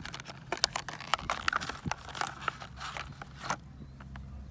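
Hands handling a small lavalier microphone and its accessories: an irregular run of small clicks, taps and rustles that thins out about three and a half seconds in.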